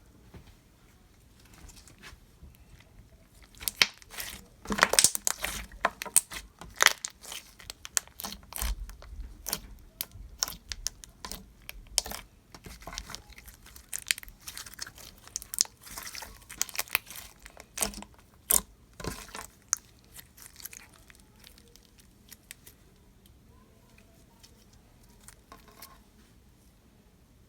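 Hands pressing, poking and stretching a thick, glossy slime, making a run of sharp wet clicks and pops. The clicks come thick and fast from about four seconds in and thin out and grow quieter after about twenty seconds.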